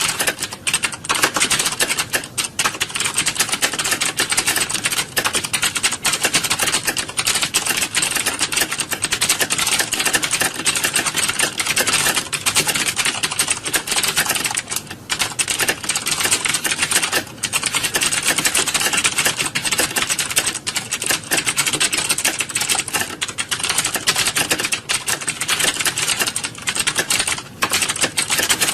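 Many computer keyboards being typed on at once, as in a typing-test hall: a dense, continuous clatter of keystrokes with only a few brief lulls.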